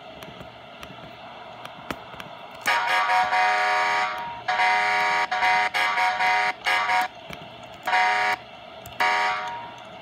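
Fire-truck air horn, the Wolo Chief 846 named on screen, heard through a laptop's small speakers. It gives a long blast a little under three seconds in, then about six shorter blasts of uneven length, each several steady tones sounding together.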